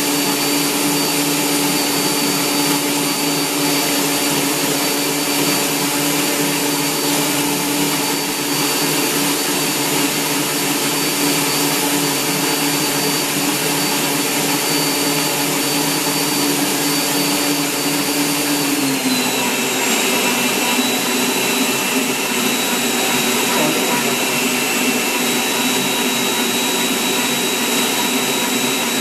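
Electric stand mixer running steadily, a loud motor whine over a hiss. About two-thirds of the way through, its pitch drops a little and stays at the lower pitch.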